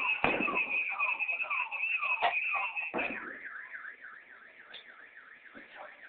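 A car alarm siren sounding: a steady high tone with falling sweeps about twice a second, switching about three seconds in to a fast warble. Three loud sharp bangs from the explosions cut through it in the first half.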